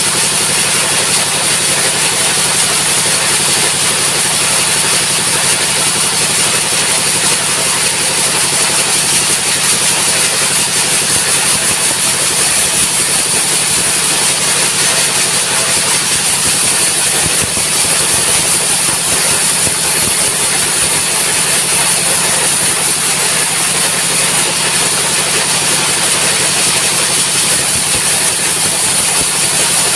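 A sawmill's engine running steadily, with a constant high-pitched hiss over it.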